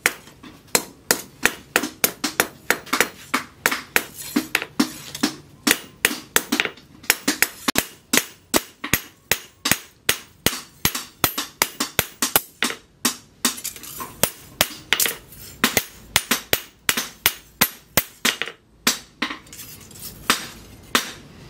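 Hand hammer striking a sickle blade, forged from tractor plough steel, on a steel post anvil: sharp metallic blows in a quick, even rhythm of about three a second, with a short pause near the end.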